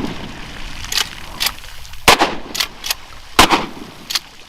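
A Serbu Super Shorty 12-gauge pump shotgun firing: two loud shots about a second and a half apart, each with a short ringing tail, with fainter sharp cracks in between.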